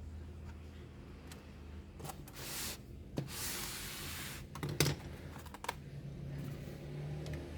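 Plastic laptop casing being handled and worked open: two spells of scraping and rubbing a few seconds in, with three sharp clicks like snap-in clips letting go.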